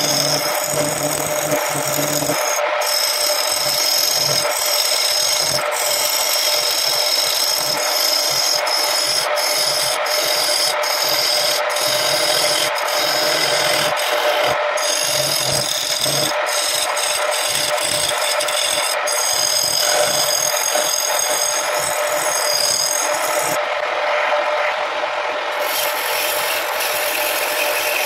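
Wood lathe running with a steady motor tone while a tool scrapes against the spinning wood blank, a continuous abrasive noise with brief dips.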